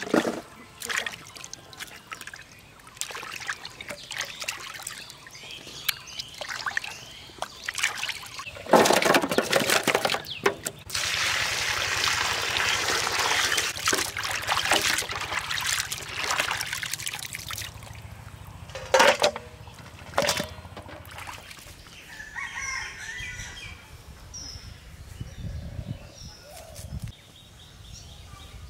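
Water splashing and sloshing in a metal basin as a batch of small bata fish is washed by hand, with a longer stretch of pouring or sloshing water in the middle. A rooster crows in the background later on.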